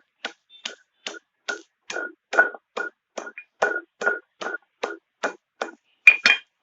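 A pestle pounding ginger and lemongrass to bruise them, in a steady rhythm of about two and a half strikes a second. Two harder strikes come near the end, and then the pounding stops.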